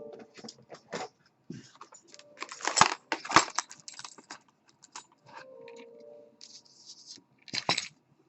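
Small metal clicks, scrapes and rattles as a Mul-T-Lock Junior dimple padlock, its key and the picking tools are handled, with a louder cluster of clacks about three seconds in.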